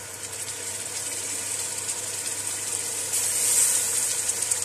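Oil sizzling and crackling in an aluminium pot of fried onion-tomato masala with yogurt just added. The sizzle swells louder about three seconds in.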